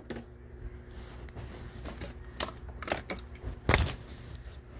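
Handling noise: scattered small clicks and rustles of products and the phone being handled, with a louder pair of knocks a little before the end.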